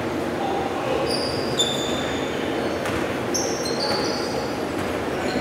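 Basketball sneakers squeaking on a hardwood gym floor: many short, high squeals at irregular moments over a steady echoing hall background, with a single thud about one and a half seconds in.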